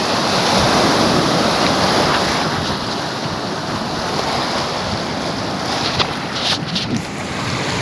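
Sea waves washing against the shore, with wind buffeting the microphone. A few short crackles come about six seconds in.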